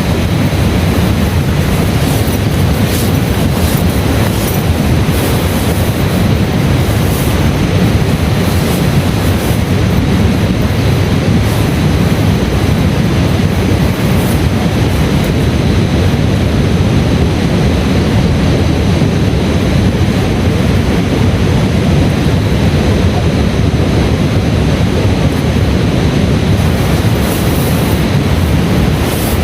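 Heavy rain pouring steadily, a dense unbroken rush of noise with a strong low rumble and faint scattered drop ticks.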